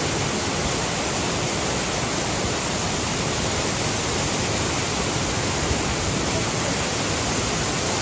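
Waterfall pouring over boulders close by: a loud, steady rush of falling water.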